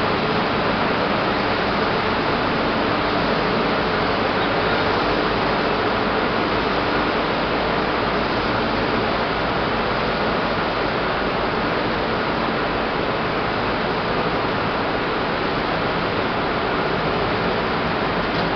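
Fruit pomace drying and bagging plant running: a loud, steady rushing noise of fans, blowers and conveyors, with a faint steady hum underneath.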